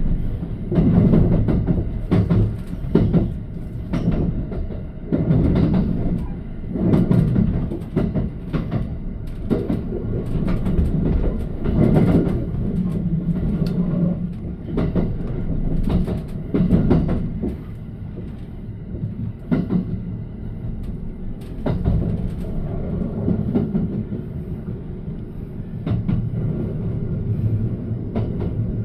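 Limited express Thunderbird electric train running into the platform, its wheels clacking over rail joints under a low rumble. The clacks come close together at first, then thin out and grow quieter about two thirds of the way in as the train slows.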